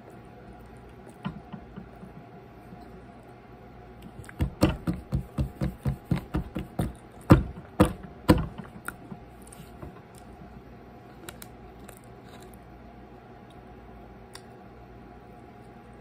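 A quick run of knocks on the tabletop, about four a second, then three louder single knocks; typical of fingers tapping the table close to the camera. A few faint ticks come just before.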